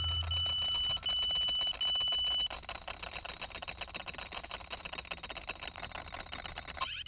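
Electronic alarm beeping four times in a row, each beep just under a second long. Under the beeps runs a steady high-pitched ringing tone with a crackling hiss, which carries on after the beeps end and cuts off abruptly near the end.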